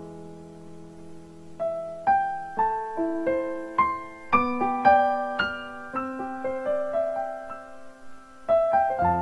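Background piano music: a held chord dies away, then a slow melody of single notes, with fuller chords coming in near the end.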